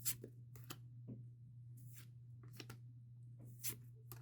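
Pokémon trading cards being slid and flipped through by hand: a few faint, brief brushing strokes of card against card, over a steady low hum.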